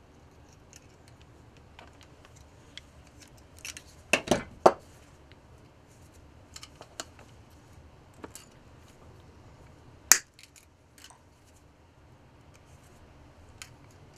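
Pliers bending and gripping 0.9 mm stainless steel TIG welding wire to form a lure's belly hook loop. Scattered small metallic clicks, with three loud clicks in quick succession about four seconds in and one sharp click about ten seconds in.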